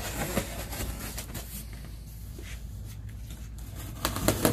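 Box cutter cutting through a corrugated cardboard pallet box, with uneven scraping and rustling of the cardboard and a cluster of sharper knocks about four seconds in.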